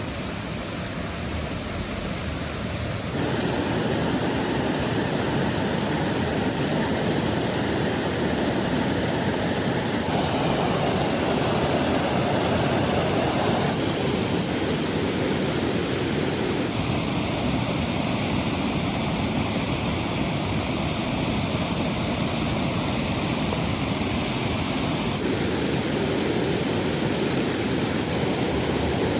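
Steady rushing water noise from the river and rain, with no clear crackles or knocks. Its tone changes abruptly several times, now fuller and lower, now thinner and hissier.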